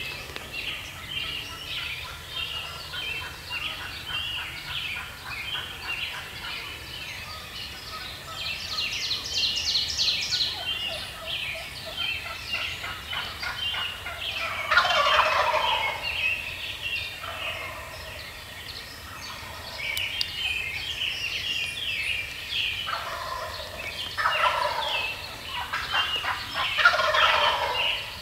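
Wild turkey gobbler gobbling: a loud rattling gobble falling in pitch about halfway through, and several more gobbles near the end. A continuous chorus of songbirds chirps underneath.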